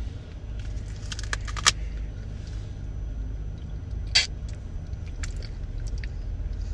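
A steady low rumble, like a car's running noise, with a few sharp clicks about a second in and one louder crackle about four seconds in, as the pudding cups are opened and handled.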